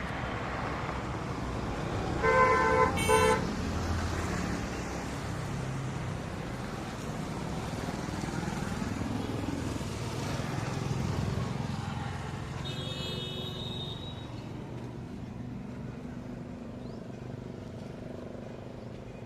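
Road traffic running, with a vehicle horn honking twice about two to three seconds in, and a shorter, higher-pitched horn near the middle.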